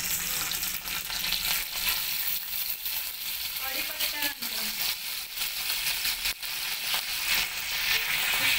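Curry leaves frying in hot oil in a kadhai: a steady, dense sizzle with scattered sharp pops.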